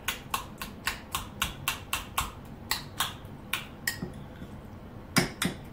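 Metal spoon clicking against the side of a bowl as guacamole is stirred, about three or four clicks a second. The clicks pause about four seconds in, then come back with two louder knocks.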